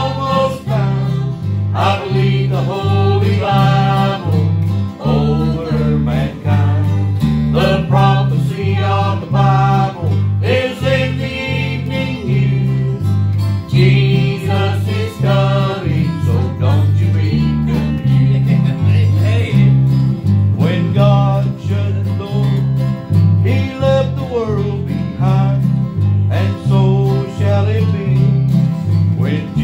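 Country gospel music, played as an instrumental passage: an electric bass guitar plays a steady bass line, changing note about twice a second, under a plucked guitar melody.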